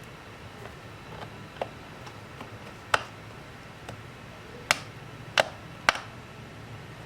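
Scattered sharp clicks and taps of small tools and laptop parts being handled during repair work, with the loudest few coming in the second half.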